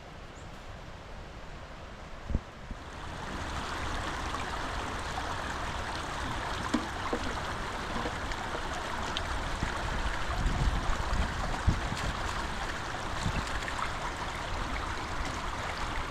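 Steady rushing of running water that swells about three seconds in, with a single knock shortly before.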